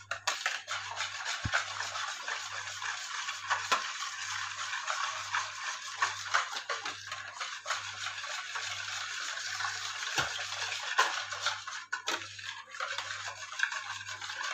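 Wire balloon whisk beating a runny cream-and-milk mixture in a plastic bowl: a steady, fast swishing, with the wires knocking against the bowl now and then.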